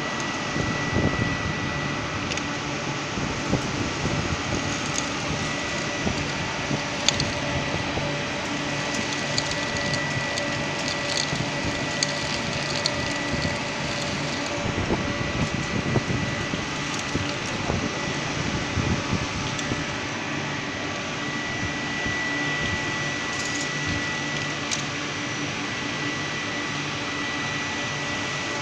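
SLEEK series industrial vacuum cleaner running steadily while sucking up oil: a constant rushing noise with a thin high whine, and scattered short clicks and crackles.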